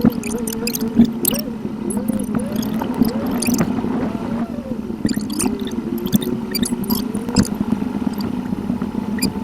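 Car interior sound from a dashcam, played back at eight times speed: a steady hum with a wavering higher tone and rapid scattered high-pitched clicks.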